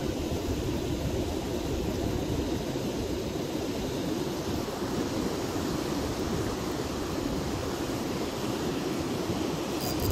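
Steady rushing of river water over rapids and small falls.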